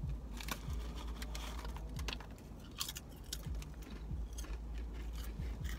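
Ridged potato chips crunching as they are bitten and chewed, with the chip bag crinkling as a hand reaches into it: a string of sharp, uneven crackles.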